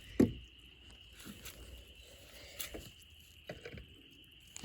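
A few scattered soft knocks and rustles, the sharpest about a quarter second in, over a steady high-pitched insect drone.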